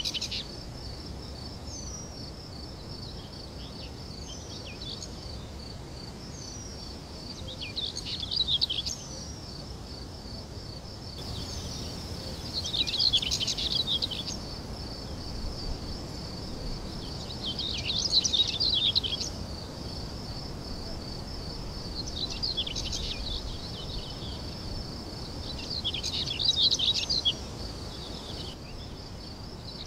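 Birds singing over a steady, high, pulsing insect trill like crickets. Short bursts of chirping bird song come every four to five seconds, and in the first few seconds there are brief falling chirps.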